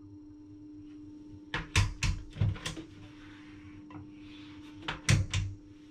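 Mirrored bathroom cabinet doors being opened and shut: a cluster of knocks and clicks from the doors and hinges about one and a half seconds in, and three more near the end, over a steady low hum.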